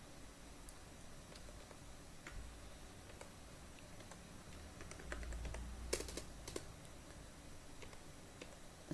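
Faint computer keyboard keystrokes: scattered single key clicks, then a quick run of louder keys about six seconds in, over a low background hum.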